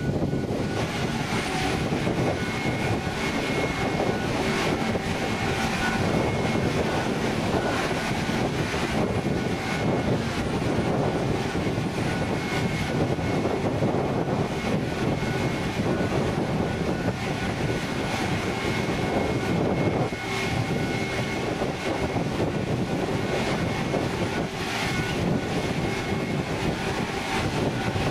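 A steady engine drone with a faint high whine over it, running evenly throughout.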